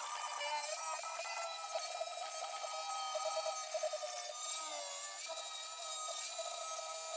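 Power grinder grinding down welds on a steel floor panel: a steady whine whose pitch sags briefly when the disc is pressed into the metal, once about half a second in and again around five seconds in.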